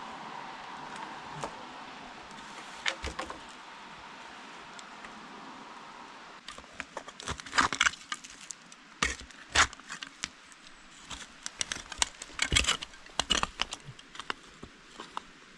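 Wood being handled or broken: a steady faint hiss, then from about six seconds in a run of irregular sharp wooden knocks and cracks.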